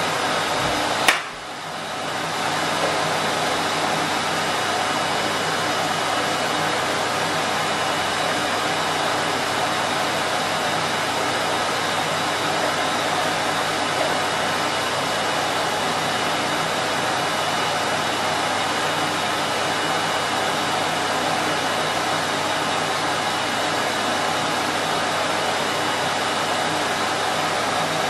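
Henry vacuum cleaner motor running steadily with an even rushing whine. About a second in there is a sharp click, the sound drops, then builds back up to full speed over a second or two.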